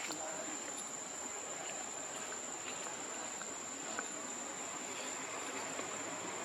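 Insects chirring in a steady high-pitched drone over a background hiss, with a few faint scattered clicks.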